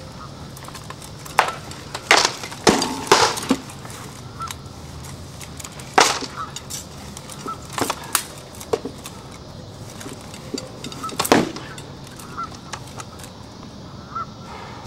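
Sword blows landing on shields and armour as two armoured fighters spar: sharp knocks, a quick flurry about one and a half to three and a half seconds in, then single heavy strikes about six, eight and eleven seconds in.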